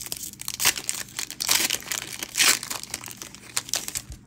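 Foil Magic: The Gathering booster pack wrapper being torn open and crumpled: irregular crinkling and crackling, with three louder crackles in the first two and a half seconds, stopping suddenly at the end.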